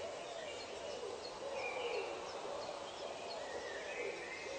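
Birds calling in a forest soundscape: a low call that rises and falls, about one a second, over higher chirps and faint short notes.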